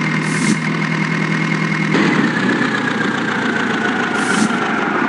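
Heavy diesel machinery engine running steadily, with a high whine that drifts slowly in pitch and shifts about two seconds in. Two short hisses occur, one just after the start and one near the end.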